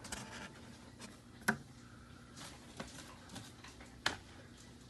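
Cassette audiobook cases being handled in a cardboard box: faint rustling with a few short knocks, the sharpest about one and a half seconds in and another near the end.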